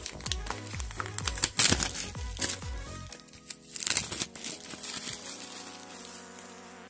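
Plastic shrink-wrap crinkling and tearing as it is peeled off a wall calendar by hand. Under it runs background music with a quick beat, which stops about three seconds in and leaves a fading held note.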